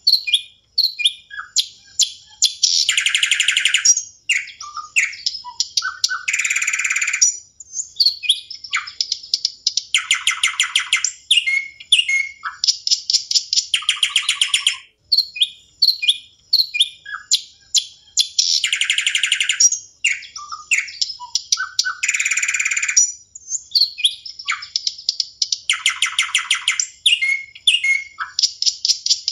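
Birdsong played as a sound effect: many short chirps and whistles, with a dense fast trill about every four seconds in a repeating pattern.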